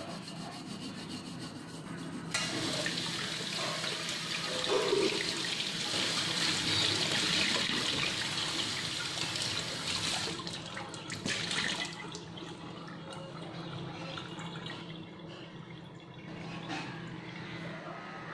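Steel wool scrubber rubbing on a stainless steel pot. A couple of seconds in, the kitchen tap comes on suddenly and water rushes and splashes into the stainless steel sink as the pot is rinsed. The water stops about ten to twelve seconds in, with a few clinks of metal.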